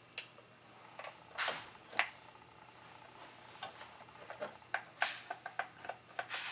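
Light clicks and knocks of hands and a precision screwdriver on a plastic airsoft drum magazine, with a few louder knocks in the first two seconds and a quicker run of small ticks in the second half as the screw is turned out.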